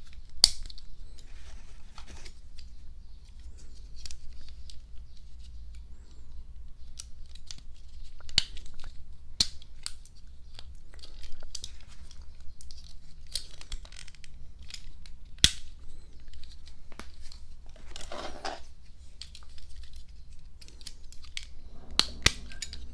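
Small plastic parts clicking and snapping as they are pressed onto a Majorette Tune Ups die-cast toy car, with rustling from handling the car. The clicks are short and irregular, and the sharpest comes about halfway through.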